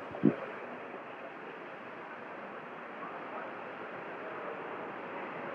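Steady hiss of an open radio communications line, with one short click about a quarter second in.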